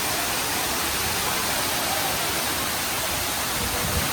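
Waterfall pouring, a steady, dense rush of falling water that never lets up.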